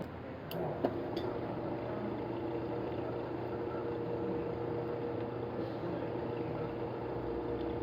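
A machine running steadily with a constant hum, with a few light clicks between about half a second and a second in.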